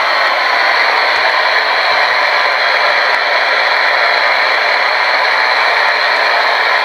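Portable radio giving out a steady, loud hiss of static, with no voice coming through.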